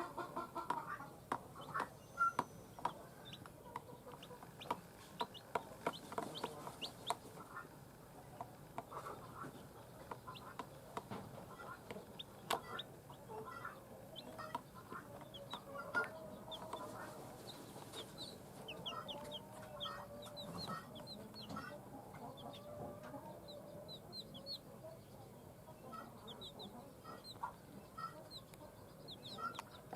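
Newly hatched chicks peeping in short, high, falling notes, many at a time, while a mother hen clucks low and steadily beneath them. Sharp taps and clicks sound through the first half.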